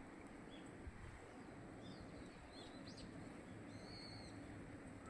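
Faint calls of small birds: a few scattered short chirps, including one quick rising one about three seconds in, and a slightly longer call about four seconds in. They sit over a low, steady background of outdoor noise.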